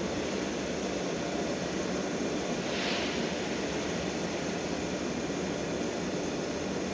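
Steady low rumble of an electric train approaching in the distance, blended with the station's background noise, with a brief hiss about three seconds in.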